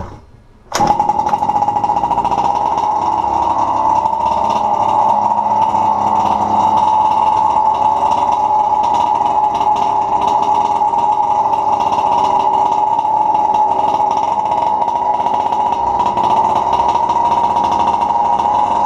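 Losi MTXL's 23cc two-stroke gasoline engine catching on a pull of the recoil starter about a second in, just taken off choke, then idling steadily.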